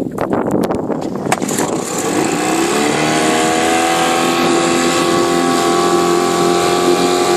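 1964 Johnson 3 hp two-stroke outboard motor running unevenly at low speed with a few sharp clicks, then about two seconds in its note rises as it speeds up and settles into a steady run.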